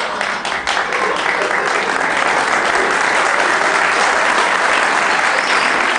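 Audience applauding a punchline: a few separate claps at first, then dense, even clapping that holds steady.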